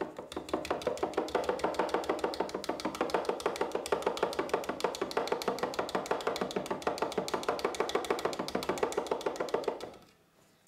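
Stainless-steel mesh sieve of flour shaken over a plastic mixing bowl: its frame taps against the bowl in a quick, even rhythm of several strokes a second. It stops near the end, once the flour has passed through.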